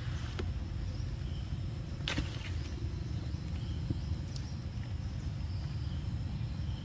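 Outdoor ambience: a steady low rumble with faint high chirps scattered through it, and one sharp click about two seconds in.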